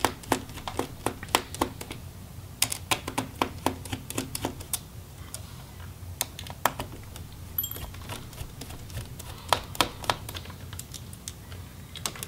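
1.5 mm Phillips precision screwdriver working tiny screws inside a laptop chassis: a string of sharp, irregular clicks in clusters as the bit turns in the screw heads, over a low steady hum.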